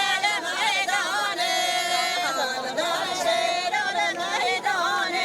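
A voice singing long held notes that bend and waver in pitch, in a wedding-song style.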